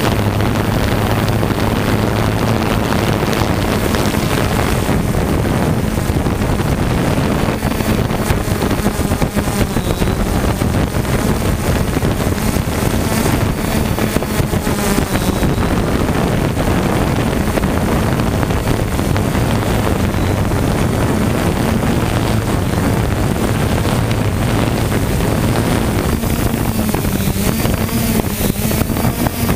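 Steady hum and whir of a 3DR Solo quadcopter's motors and propellers, with wind noise on the microphone.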